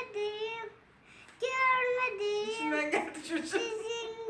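A young girl singing an improvised song in long, drawn-out notes. She breaks off briefly about a second in, then carries on. A lower voice briefly overlaps about three seconds in.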